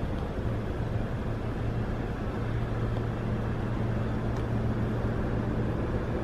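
A car engine idling, heard as a steady low hum over a constant rumble.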